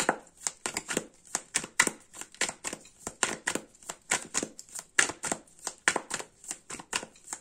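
A tarot deck shuffled by hand, the cards tapping and slapping against each other in a quick, irregular run of clicks, several a second.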